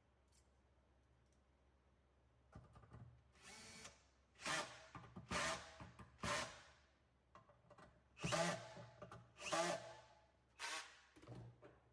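Power drill with a Phillips bit driving bus bar screws on a crypto miner, run in about eight short bursts, each under half a second.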